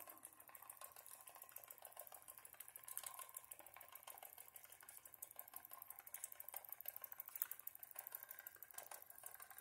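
Faint, rapid ticking of a small Wilesco D3 live steam engine's oscillating brass cylinder, running steadily on low steam pressure of about 2 psi.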